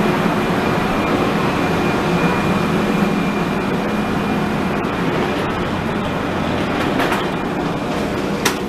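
Amtrak Acela Express train with a steady rumble and a faint high whine. Two sharp clicks come in the last two seconds.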